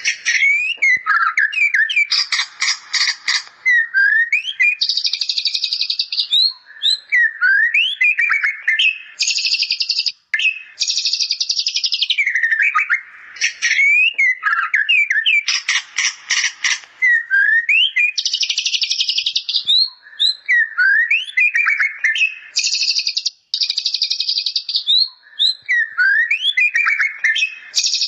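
White-rumped shama singing a continuous song laced with mimicked bar-winged prinia calls: short upward-sliding whistles alternating with rapid buzzy trills and scratchy rattling bursts. The same run of phrases comes round again about every fourteen seconds.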